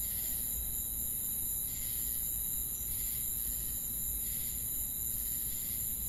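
Night-time field ambience: a steady, high-pitched chirring of insects over a low rumble.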